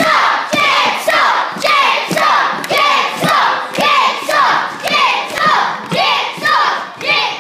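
Wrestling crowd, many of them children by their high voices, chanting in a steady rhythm with hand claps, about two beats a second.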